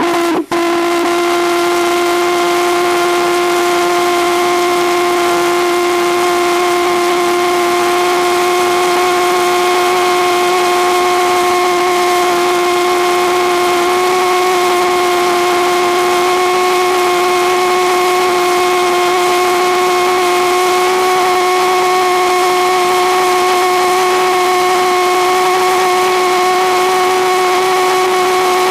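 Stainless-steel valveless pulsejet running steadily on propane at reduced fuel pressure: a loud, continuous pitched drone whose pitch creeps up slightly as the engine heats. A split-second drop-out about half a second in.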